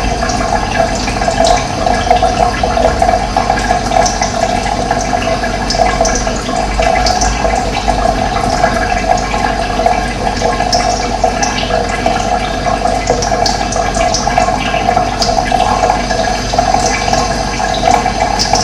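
Steady rush of running water, with short high chirps of birds scattered through it.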